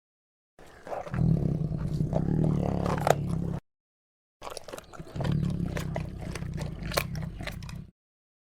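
Leopard rumbling low in its throat as it eats, with sharp crunches and clicks of teeth on prey bone. Two takes of about three seconds each, with a short break of silence between them.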